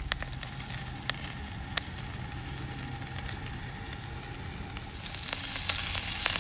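Steak searing in a very hot cast iron skillet with peppers: a steady sizzle, with a couple of sharp clicks early on, swelling louder near the end.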